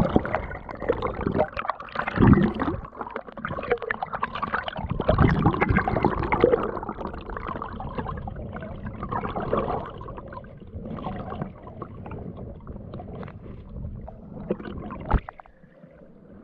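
Muffled underwater gurgling and rushing of a river current around a diver's camera, with scattered knocks and scrapes. A sharp knock comes near the end, after which it goes much quieter.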